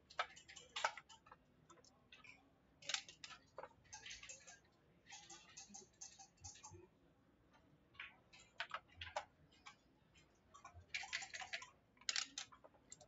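Backgammon checkers and dice clicking on a wooden board during play: scattered sharp clicks and short rattling runs of several clicks, with the densest run near the end.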